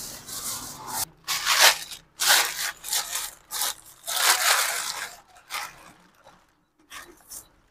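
Plastic bag rustling and crinkling in irregular bursts as a hand rummages through it.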